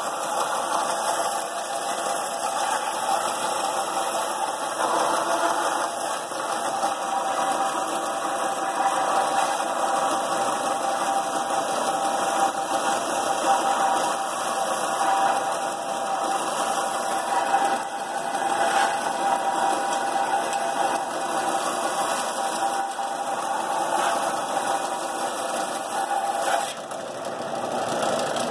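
Electric power sander running steadily against a forged steel axe head, with a brief dip in level near the end.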